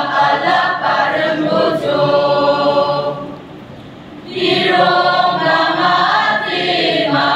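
Choir singing together in several voices, with held notes. The singing drops away for about a second a little past the middle, then the full choir comes back in.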